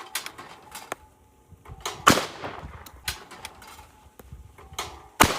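A shotgun fires at a clay target about two seconds in, and its report trails off slowly. A second sharp bang comes near the end, with light clicks and knocks in between.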